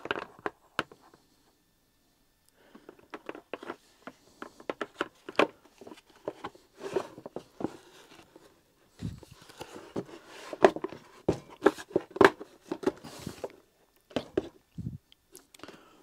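Black plastic motor-head housing of a Numatic Henry vacuum cleaner being handled and fitted back together: irregular clicks, knocks and scrapes of hard plastic on plastic, with a few louder knocks in the second half.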